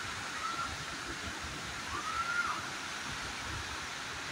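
Steady rushing of a waterfall, with a couple of short whistled notes that rise and fall over it, the longer one about two seconds in.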